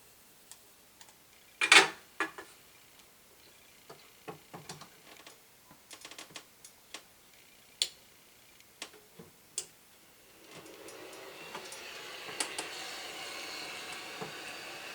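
Desoldering tools being handled: one loud sharp snap about two seconds in, then scattered light clicks and taps, and from about ten seconds in a steady hiss.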